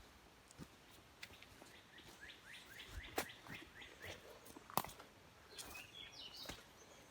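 Northern cardinal singing a quick run of about eight rising whistled notes, with a few more high notes a little later. A few sharp snaps of footsteps on the forest floor fall among them.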